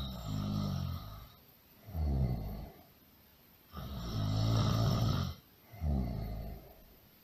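Loud snoring in a steady rhythm: twice a long rasping snore of about a second and a half, each followed by a shorter one of about a second, with short quiet breaths in between.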